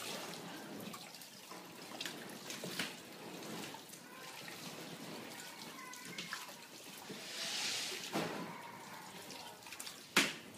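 Water splashing and trickling in a small inflatable paddling pool as a garden hose runs into it, with a louder splashing rush about three-quarters of the way in and a sharp slap near the end.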